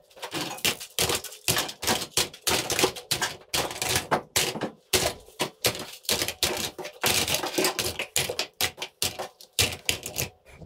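Plastic toy guns clattering and knocking against one another as a hand rummages through a cardboard box full of them: irregular rattling, several knocks a second.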